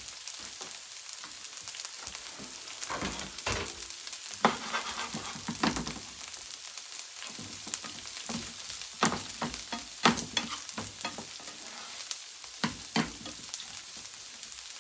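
Chopped leftover steak sizzling as it goes into a hot frying pan, with a steady high hiss and a spatula knocking and scraping against the pan, the sharpest knocks about four to six seconds in and again about nine to ten seconds in.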